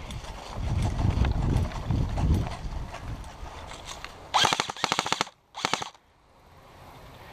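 Low rumbling noise for the first few seconds, then an airsoft gun firing full-auto: a fast burst of about a second of rapid shots, then a second, shorter burst after a brief pause.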